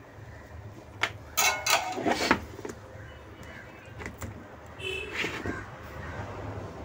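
A plastic-housed washing machine control board being handled and slid on the workbench. There are squeaky scrapes and knocks about a second and a half in and again near the middle, over a low steady hum.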